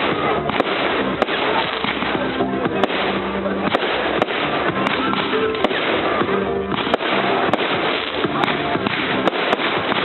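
Fireworks display: a steady run of sharp bangs and crackles from bursting shells, with music carrying held notes underneath.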